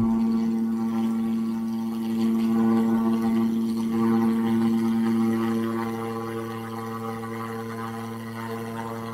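A steady low droning hum held at one pitch, with several even overtones, a little louder in the middle and easing off in the last few seconds.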